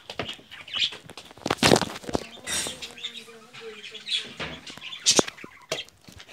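Phone handling noise: rustling and sharp knocks as the phone is moved and gripped close to its microphone, with the loudest rustle about two seconds in and a sharp click about five seconds in.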